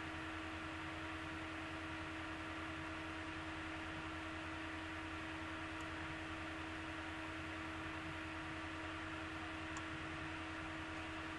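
Steady room tone: an even hiss with a constant low hum and a faint steady tone, unchanging throughout.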